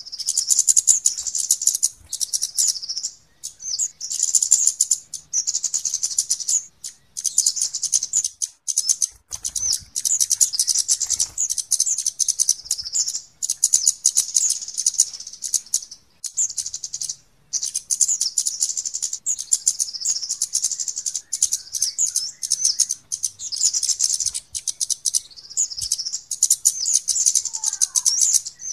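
Kemade flowerpecker calls, played as a bird lure: rapid, high-pitched ticking chatter in bursts of a second or two, broken by short pauses.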